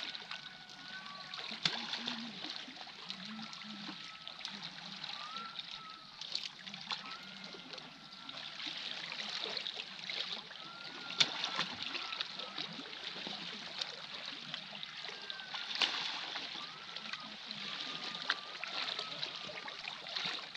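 Small sea waves lapping and splashing against shoreline rocks, with a few sharp knocks now and then.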